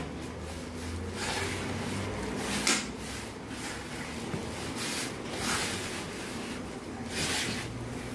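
Hands rubbing and pressing crumbly, moist whole-wheat flour dough around a wooden bowl, a dry scraping-rubbing sound with several louder swishes at irregular moments.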